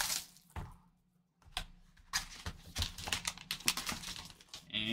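Plastic shrink-wrap crinkling and tearing as it is pulled off a trading-card hobby box, then the cardboard box handled and opened: a few crackles, a short pause, then a run of quick light crinkles and taps.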